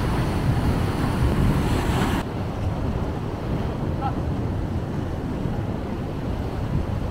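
Sea waves breaking and washing on a beach, with wind buffeting the microphone. The higher hiss drops away abruptly about two seconds in, leaving the low rumble of surf and wind.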